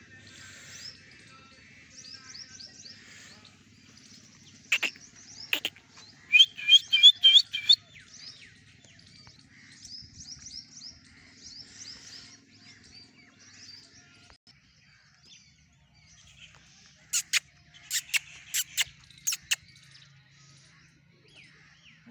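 Small birds chirping and calling in short repeated notes, with a loud run of quick calls about six to eight seconds in. Sharp clicks come twice near five seconds, then in a cluster late on.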